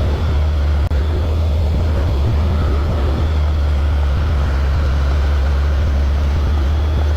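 Excavator's diesel engine running steadily under work, a loud, deep, even drone.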